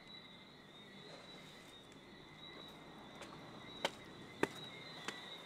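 A steady high night chorus of insects and frogs, with a few sharp footsteps about four seconds in, two of them louder, as someone walks past.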